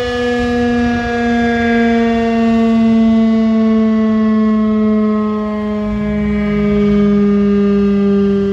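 Federal Signal RSH-10 Thunderbeam siren sounding one loud tone that slowly slides down in pitch. Its loudness swells and eases as the rotating head sweeps around.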